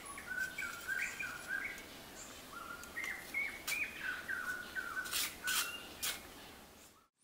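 A bird singing a long series of short whistled notes, each stepping up or down in pitch, two to three a second. A few short scraping noises come in over the song during the second half.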